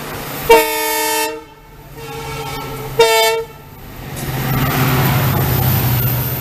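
Two blasts of an Indian diesel locomotive's multi-tone horn, a longer one about half a second in and a shorter one about three seconds in. Then the loud rumble and rush of the Jan Shatabdi Express coaches passing close alongside the moving train.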